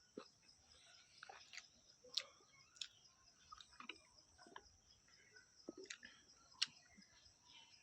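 A person chewing chicken curry close to the microphone: irregular wet smacks and clicks of the mouth at a slow, uneven pace.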